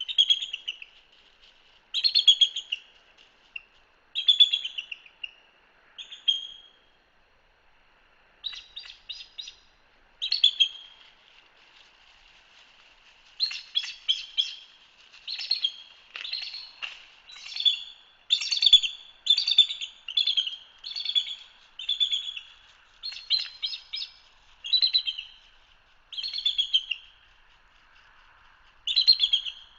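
Bald eagle chatter: bursts of high-pitched, stuttering piping calls, each under a second long, repeating every second or two and coming thick and fast in the middle of the stretch.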